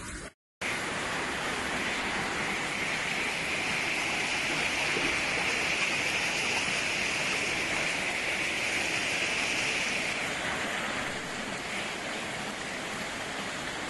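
Steady rushing of floodwater and heavy rain in a flooded street, an even, unbroken hiss that starts after a moment's silence about half a second in.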